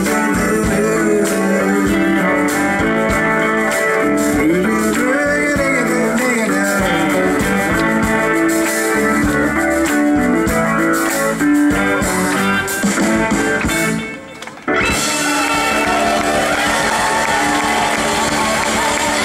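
Live band playing blues-rock, with electric guitar, keyboard and drums under a singing voice. About fourteen seconds in the sound dips briefly, then the music carries on with more hiss in the treble.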